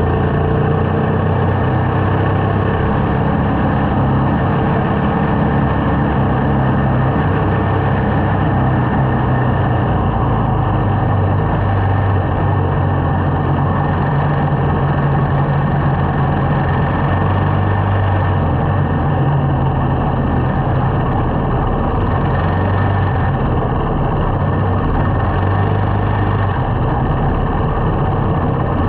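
Small motorcycle's engine running while riding along, its note shifting a little with the throttle, under a steady rush of wind and road noise.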